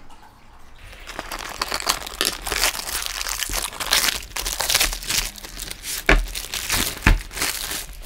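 Clear plastic wrapping crinkling and rustling as a coil of thick rubber-jacketed welding cable is pulled out of it, with two dull thumps near the end.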